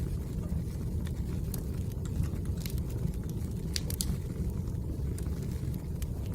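Firewood burning, a steady low rumble with scattered sharp crackles and pops, the loudest couple about four seconds in.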